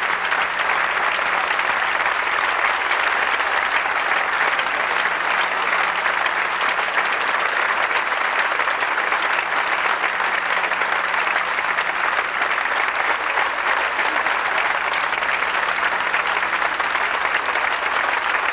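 Theatre audience applauding steadily in a long, dense ovation for a solo dance performance.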